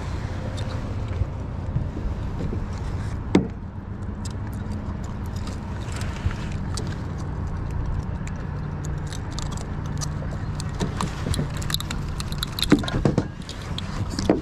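Small metal clicks and clinks of a fish lip-gripper and pliers while a small catfish is unhooked and the line handled, with a few louder knocks, over a steady low hum.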